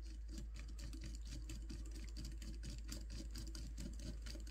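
A hand screwdriver driving a small countersunk steel screw into a drone frame: faint, rapid, even ticking and scraping.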